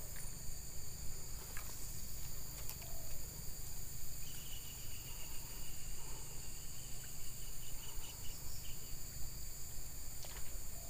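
Steady high-pitched insect chorus in an oil palm plantation, with a low rumble underneath.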